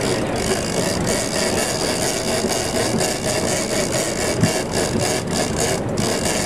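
Fishing boat's engine running steadily under a constant hiss.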